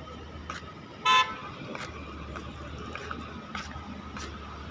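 A car horn gives one short toot about a second in, over the steady rumble of jammed, slow-moving traffic.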